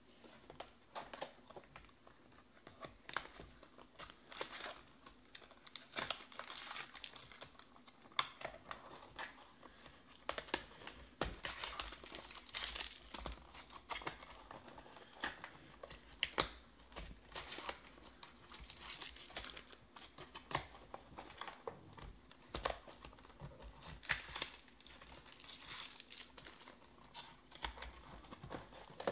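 Foil-wrapped trading-card packs and the cardboard hobby box being handled: irregular crinkling and rustling of foil wrappers with scattered light, sharp clicks.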